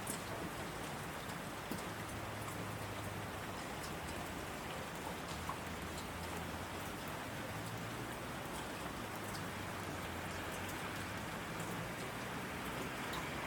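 Heavy rain falling steadily on asphalt: an even hiss with scattered sharp ticks of drops splashing close by.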